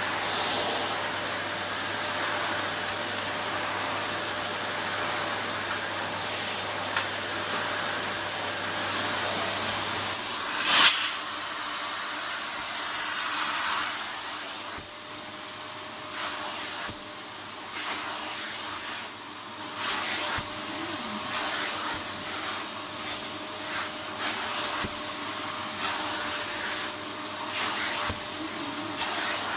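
Gtech CY01 bagged cylinder vacuum cleaner running, its motor giving a steady whine over the rush of suction. A single sharp knock comes about 11 seconds in, after which the suction sound runs a little quieter and rises and falls every second or two.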